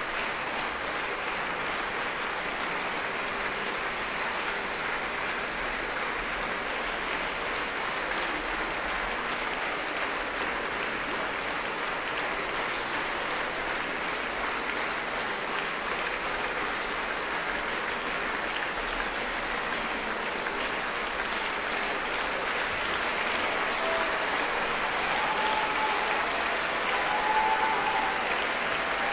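Large concert audience applauding steadily, a dense wash of clapping that swells slightly near the end.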